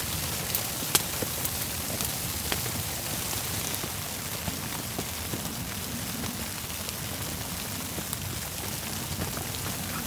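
Steady rain falling, an even hiss with scattered sharp ticks of drops.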